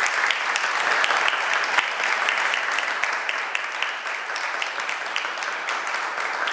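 Audience applauding, a dense patter of many hands clapping that slowly softens.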